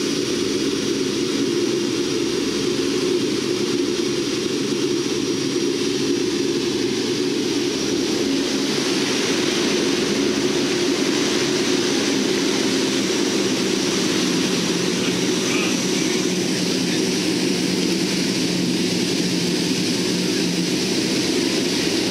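Steady drone of a Lockheed C-130T Hercules's four turboprop engines heard inside the cabin, a dense mix of low engine tones and propeller and airflow noise. The makeup of the drone shifts about a third of the way in and again past the middle.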